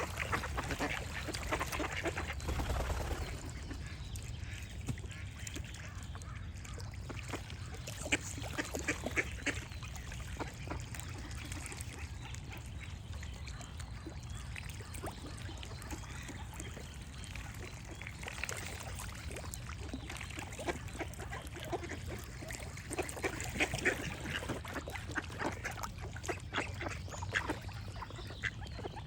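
Ducks quacking in irregular runs of short calls, a busy run in the first few seconds, more around a third of the way in, and another run near the end, over a steady low background rumble.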